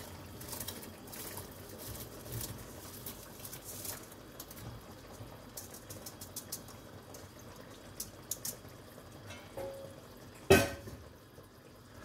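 Soaked rice tipped from a steel bowl into a pot of boiling salted water, the grains pattering in and being scraped out by hand, with the water bubbling on the gas flame. A single sharp knock about ten and a half seconds in.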